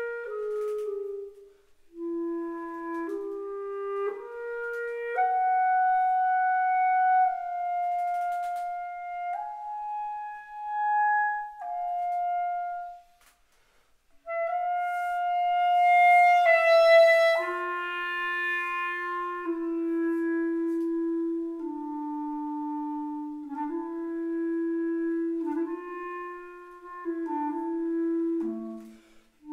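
Solo clarinet playing a melody of held and moving notes, unaccompanied. There are short breath rests near the start and just before the middle, and the loudest, highest run comes a little after the middle before the line settles into lower held notes.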